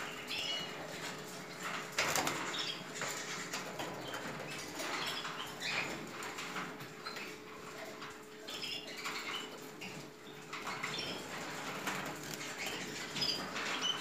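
Caged canaries giving short, scattered chirps and call notes, with rustling, flutters and scrabbling as they shift about on the perches and wire. A faint steady hum sits underneath.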